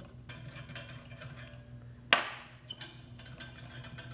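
Steel rods clinking and knocking against each other as they are handled, with a sharp metallic knock about two seconds in and a faint high ringing between the clinks.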